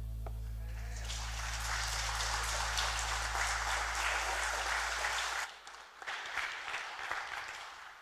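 Congregation applauding at the end of a worship song, over the band's final held chord. The chord cuts off about five and a half seconds in, and the clapping thins out and fades after it.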